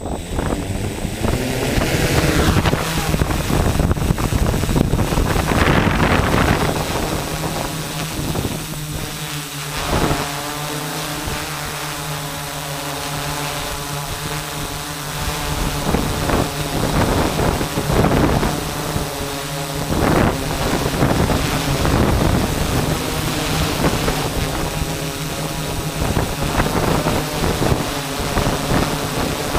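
Small multirotor drone's propellers spinning up at lift-off, then a steady motor-and-propeller whine as it climbs and hovers, heard from the camera mounted on the drone. Wind gusts buffet the microphone.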